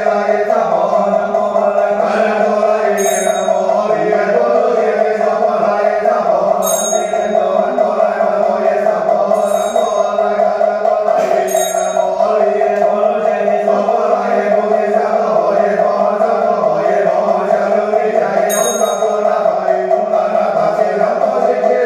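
Buddhist mantra chanting over a steady drone, continuous throughout. A brief high ringing chime sounds about five times.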